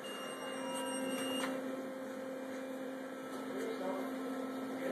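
Steady low hum of machine-shop equipment, with a few faint ticks.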